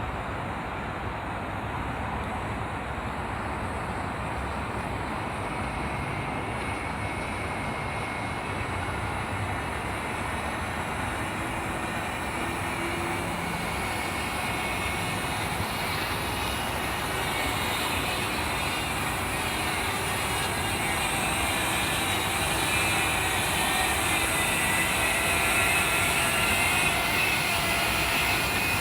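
DJI Mavic Mini drone's propellers whirring in flight: a steady high whine over a low rumble of wind, growing gradually louder and more tonal toward the end.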